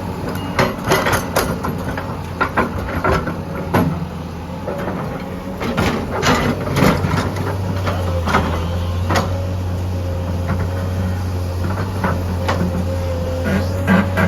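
Heavy diesel machinery running steadily: an excavator working with a dump truck, with a steady whine over the engine and a string of sharp clanks and knocks through the first nine seconds or so. The engine note grows louder about halfway through.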